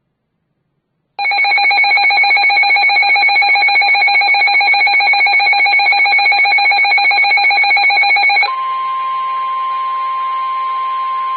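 Weather radio alert: a loud, rapidly trilling electronic alarm starts about a second in and sounds for about seven seconds. It then gives way to the steady NOAA Weather Radio warning alarm tone of about 1 kHz over radio hiss, which signals that a warning is about to be read.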